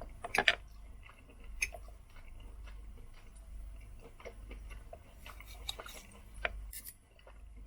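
A person chewing a piece of seared Kobe beef, with soft mouth sounds and scattered sharp clicks, the loudest about half a second in, over a low steady hum.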